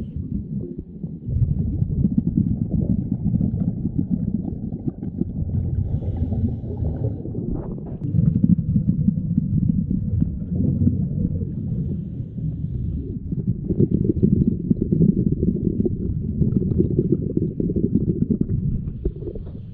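Scuba diver breathing through a regulator underwater: low, muffled bubble noise in long stretches of several seconds, easing off briefly about a second in, around 7 seconds and around 13 seconds.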